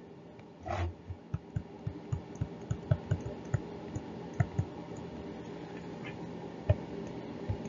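Stylus tapping and clicking on a tablet while handwriting: a run of small irregular clicks in the first half, then a few scattered ones.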